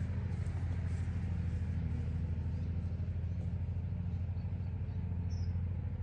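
Ride-on lawn mower's engine rumbling, a steady low drone that holds even throughout.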